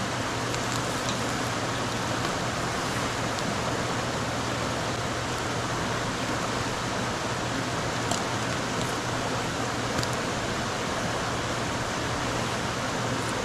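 Steady sizzling hiss with a few faint crackles about eight and ten seconds in: food grilling over a campfire.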